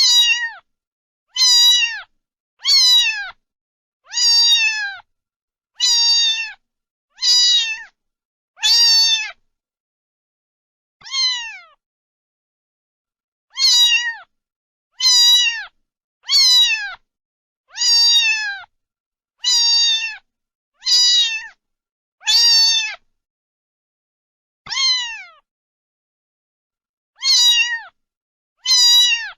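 Domestic cat meowing over and over, about one short high meow every second and a half, each falling in pitch, with a couple of longer pauses.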